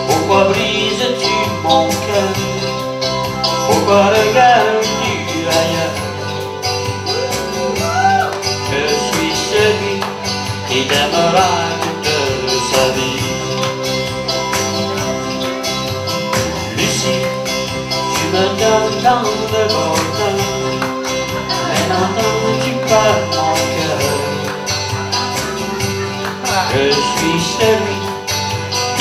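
Live 1960s-style rock band playing: electric guitars, bass guitar and drum kit with cymbals keeping a steady beat.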